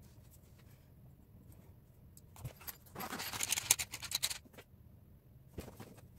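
A few faint pencil strokes on paper, then a rattling, clinking clatter of small hard objects, loudest from about three to four and a half seconds in, with a few more clicks near the end.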